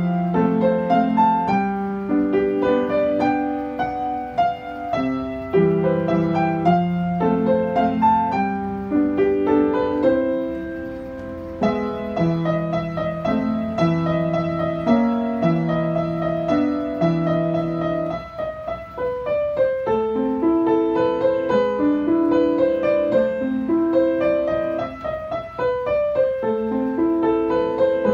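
Yamaha upright piano played with both hands: a melody in the upper register over a lower accompaniment, in a steady, unbroken run of notes.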